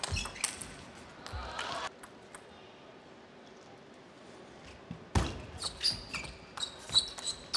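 Table tennis ball being struck back and forth. A rally ends in the first two seconds with sharp clicks of the ball on the paddles and table. After a lull of about three seconds, a new rally starts about five seconds in with quick alternating hits.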